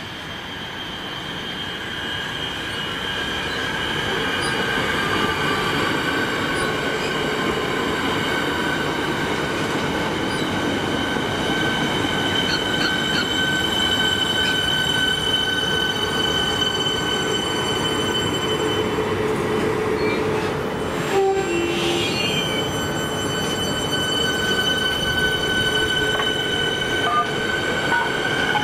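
Siemens Nexas electric train coming in along the platform and rolling slowly past, growing louder over the first few seconds. Steady high-pitched whining tones sit over the rumble of the wheels on the rails, with a short break and a few brief sounds about two thirds of the way in.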